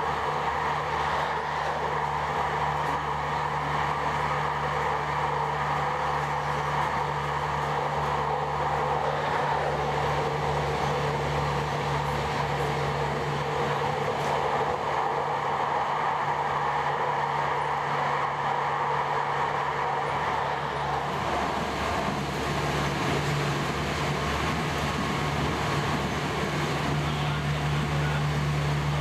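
Tram running on rails: a steady rumble with a constant electric hum at several fixed pitches. A little over two-thirds of the way through, the hum's higher tone fades and its lower tone grows stronger.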